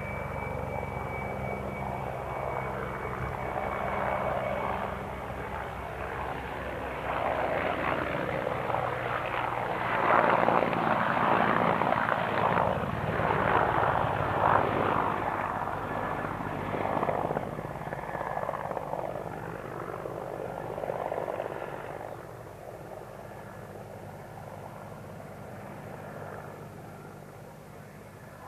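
Mi-24 helicopter's twin turboshaft engines and rotor running in flight. The sound grows louder to a peak about ten to fifteen seconds in, then fades away.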